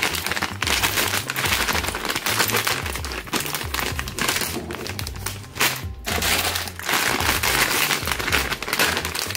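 Plastic sweet packets crinkling as they are picked up and handled, with a short lull about six seconds in, over background music with a low bass line.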